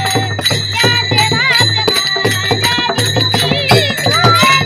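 A young boy's voice sings a Varkari devotional song with melismatic turns, backed by small hand cymbals (taal) ringing and striking a steady beat.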